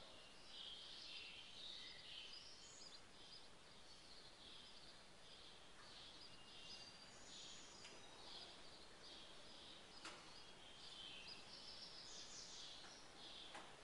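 Near silence: faint room hiss with faint high chirping in the background, and a single light click about ten seconds in.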